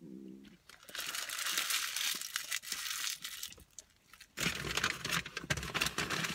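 Paper food wrapper crinkling and rustling as it is handled, in two spells of about two seconds each, the second with a few light knocks.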